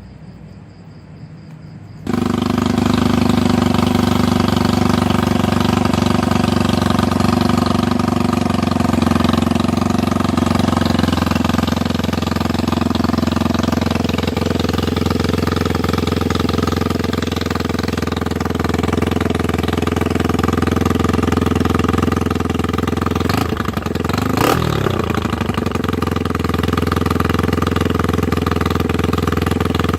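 Honda Sonic motorcycle's single-cylinder four-stroke engine starting about two seconds in, then running steadily at idle through a newly built aftermarket exhaust with a drilled inner baffle tube.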